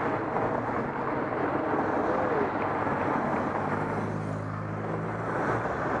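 Race convoy cars driving slowly past on the closed road, engines running, over a steady outdoor background noise.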